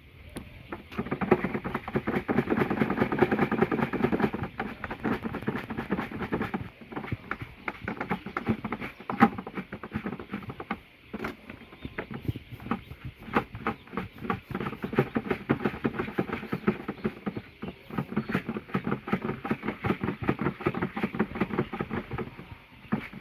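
Many baby chicks pecking feed from a trough: a dense, irregular patter of rapid beak taps, busiest in the first few seconds.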